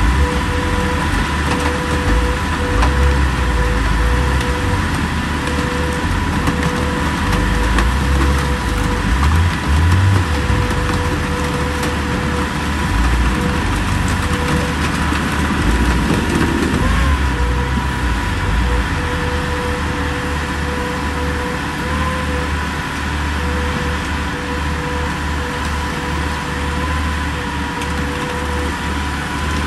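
Hydraulic car crusher pressing its lid down onto a car body, the power unit running with a steady hum over a heavy rumble, and metal crackling and crunching as the car is flattened.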